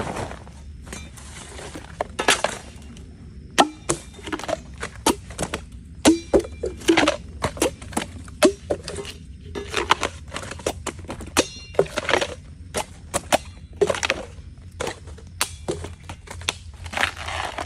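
Bamboo shoots being harvested: a run of irregular sharp cracks and crunching sounds as the shoots are cut and broken.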